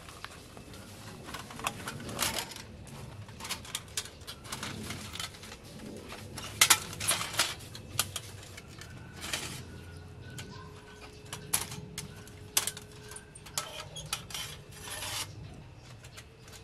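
Thin sheet-metal panels of a folding box stove clinking, clacking and scraping as they are drawn out of a fabric pouch and hooked together, in irregular sharp clicks with the loudest knocks about midway through.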